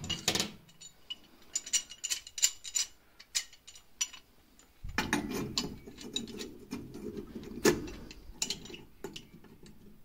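Metal clicking and scraping as a brass automatic air vent is threaded into a cast-iron boiler air scoop, turned by hand and then with a pipe wrench. A quick run of clicks comes first, then a rougher grinding stretch from about five seconds in.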